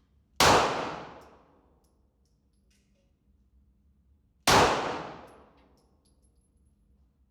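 Two gunshots about four seconds apart, each sharp crack followed by an echoing decay that lasts about a second and a half.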